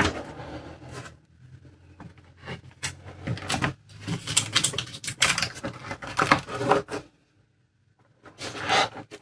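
Paper rustling and handling clicks as the stiff pages of a spiral-bound album are handled and turned, in uneven bursts with a short pause about seven seconds in.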